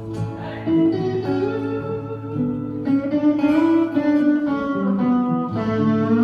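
Live band playing an instrumental break in a slow song: a guitar plays a lead melody over sustained chords, with a note bending upward near the end.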